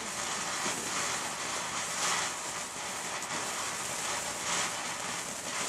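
Ground firework fountain spraying sparks with a steady, rushing hiss.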